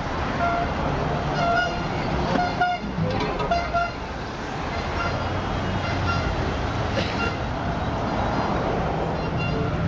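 Car horns tooting in short, repeated blasts, most of them in the first four seconds, over the steady rumble of slow-moving car and SUV traffic.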